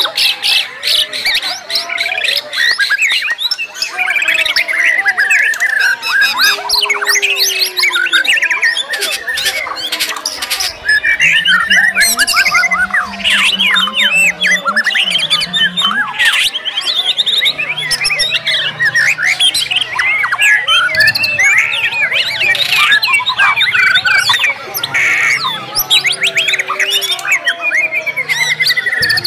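Several white-rumped shamas (murai batu) singing at once in competition: a loud, dense tangle of rapid trills, whistled phrases and harsh squawky calls, overlapping without pause.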